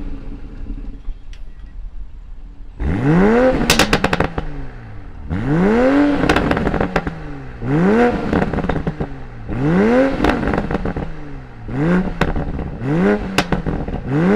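2020 Toyota Supra's 3.0-litre twin-turbocharged straight-six idling, then revved about six times, roughly every two seconds. Each rev climbs and falls back, with crackles and pops from the exhaust as the revs drop.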